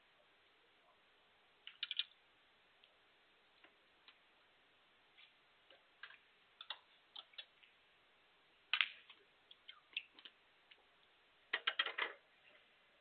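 Sharp clicks of snooker cue and balls in a hushed arena: one strong click about nine seconds in, the cue tip striking the cue ball, with scattered lighter clicks before it and a quick cluster of clicks and knocks near the end.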